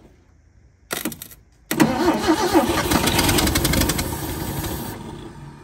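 A short spray of carb cleaner, then the Ford 300 inline-six cranks and fires on the carb cleaner, running in a rapid even beat with more spray hissing into the carburettor. It fades away over the last second or two as it dies down.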